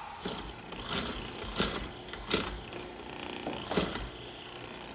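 Benchtop hollow-chisel mortiser running, its chisel plunged into a cypress rail again and again to cut a mortise: about five short, sharp sounds over a steady motor hum.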